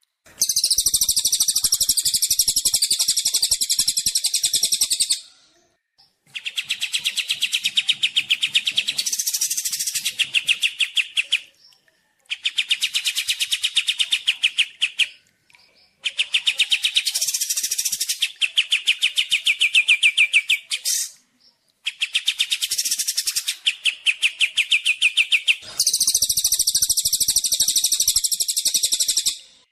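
Competition songbirds, kapas tembak and cililin, singing loud song phrases of a few seconds each with short pauses between. The phrases at the start and near the end are high and buzzy; those in the middle are rapid rattling trills of many notes a second.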